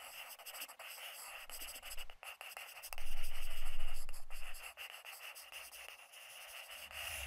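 Pen scratching across paper in quick strokes, as if writing, cutting off suddenly at the end; a deep rumble swells under it from about three seconds in, the loudest part, and fades a second and a half later.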